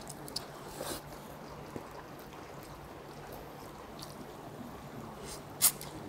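A person biting tender boiled duck meat off the bone and chewing it, soft wet mouth sounds with a few small clicks, close to the microphone. One short, sharp smack near the end stands out as the loudest sound.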